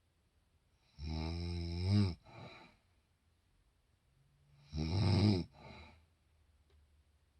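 A woman snoring heavily in her sleep: two loud snores about four seconds apart. Each lasts about a second and is followed by a shorter, softer breath.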